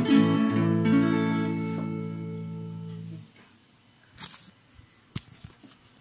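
Background acoustic guitar music: a last strummed chord rings and fades, then cuts off about three seconds in, leaving near quiet with a few faint clicks.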